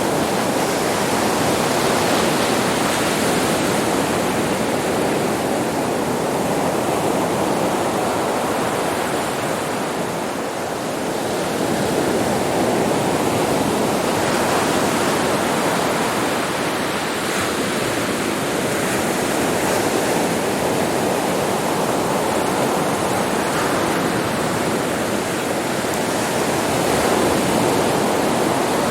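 Sea waves breaking and washing on a beach: a continuous surf rush with slow swells, easing briefly about ten seconds in and building again.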